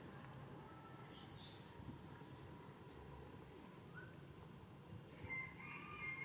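Insects droning steadily on one high pitch in the surrounding forest, with a few faint short calls near the end.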